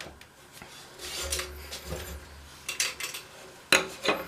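Steel wrench clinking and clanking against a lawnmower blade bolt and the steel mower deck in a series of sharp metal knocks, the loudest near the end, while working at a seized blade bolt that won't break loose.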